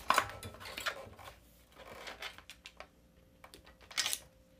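Cables and wiring rustling and scraping as they are worked and pulled through a scooter's front end, with scattered small clicks and taps; a brief louder scrape comes near the end.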